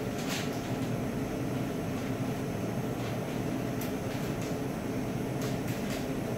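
Steady mechanical hum of a fan or cooling unit, with a few faint sharp clicks scattered through it.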